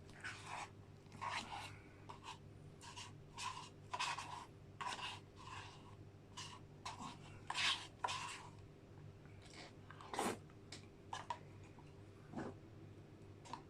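A spoon scraping and scooping McFlurry ice cream out into a bowl, in short irregular scrapes about one or two a second, over a steady low hum.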